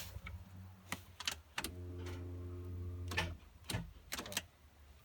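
Scattered sharp clicks and knocks of hand tools being handled, about eight in all, over a steady low hum that swells for about a second and a half in the middle.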